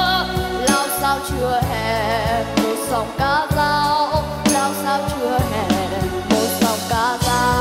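A child singing a Vietnamese resistance-war song with vibrato, over full instrumental backing.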